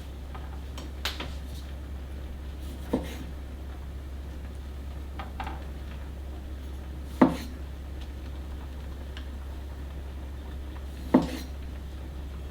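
Dishes and utensils being handled in a kitchen: four separate sharp clinks and knocks as things are set down, the two loudest in the second half, over a low steady hum.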